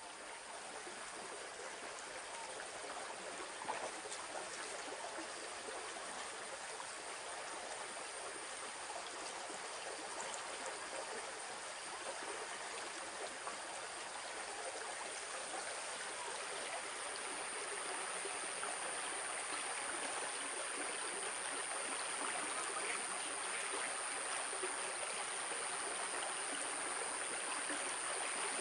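Shallow stream running over a riffle of rocks and fallen branches: a steady rush of water that grows slowly louder, with a thin steady high-pitched tone that strengthens in the second half.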